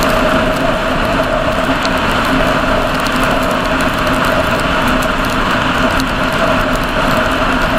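Vehicle cruising at steady speed on a wet road: a constant engine drone with two held tones under road and wind noise, with faint scattered ticks.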